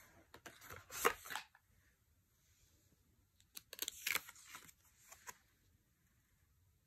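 Tarot cards being handled: two short bursts of cards sliding, flipping and tapping down on a surface, one near the start and one about halfway through.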